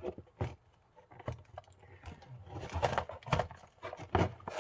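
A mini camp stove's retail package being opened by hand: scattered clicks and crinkles at first, then busier rustling with a few louder knocks in the second half.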